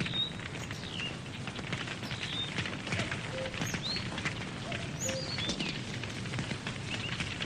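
Campfire crackling with frequent small pops and snaps, while birds give short falling chirps every second or so and a few brief low whistled notes.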